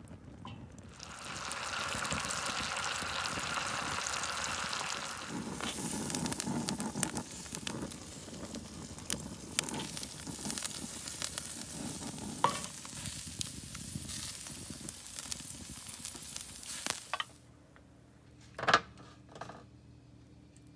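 Garlic butter and king crab legs sizzling on a charcoal kettle grill, with scattered crackles and pops. The sizzle stops about 17 seconds in, and one short loud knock follows near the end.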